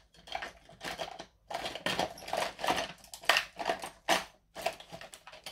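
Irregular clicking and clattering of small craft tools and supplies being rummaged through and handled on a desk.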